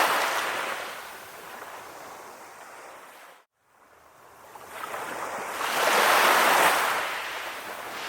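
Sea waves washing on shore in two slow swells. The first surge is ebbing at the start, and the second builds to a peak about six seconds in before receding. A brief complete dropout of sound falls about three and a half seconds in.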